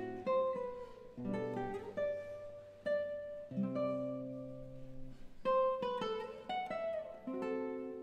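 Rohan Lowe nylon-string classical guitar played solo: plucked chords and single melody notes that ring on and fade, with a sliding note near the end.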